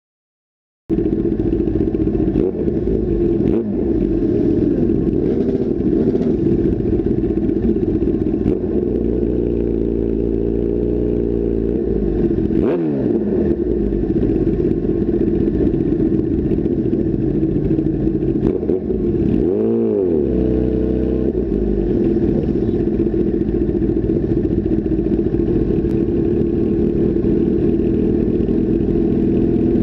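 Sport motorcycle engines running at low speed, heard close up from the bike's handlebar camera. The sound starts about a second in, and the engine revs up and back down about ten seconds in and again about twenty seconds in.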